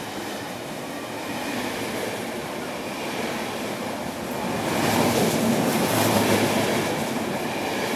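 KTT double-deck through train running past a station platform at speed without stopping: a steady rushing noise of wheels and carriages that grows louder about five seconds in.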